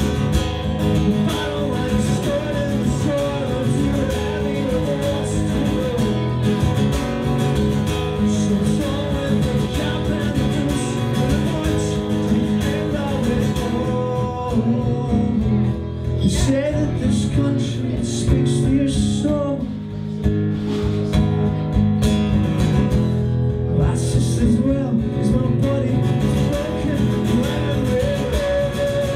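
A strummed acoustic guitar with a man singing over it: a solo acoustic punk song played live.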